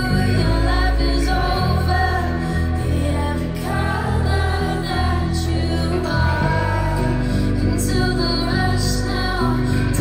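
Live concert music: a female vocalist singing a slow song over a band with heavy bass, sustained chords and occasional drum hits.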